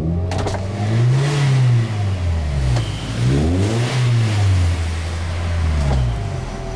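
2003 Toyota Ist's VVT-i four-cylinder engine being revved twice, the revs climbing and falling back each time, then settling to a steady idle near the end.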